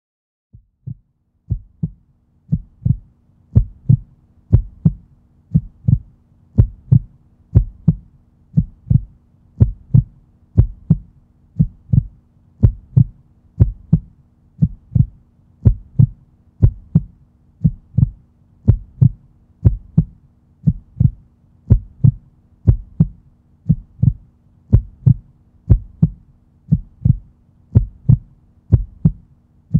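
Heartbeat sound effect: low double thumps repeating steadily, fading in over the first couple of seconds, over a faint steady hum.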